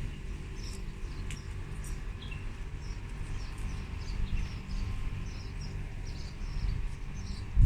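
Small birds chirping, many short high calls in quick succession, over a steady low rumble.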